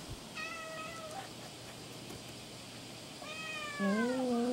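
Cats meowing for food set out in front of them: a short, steady meow about half a second in, then near the end a longer meow falling in pitch, overlapped by a lower, drawn-out cry.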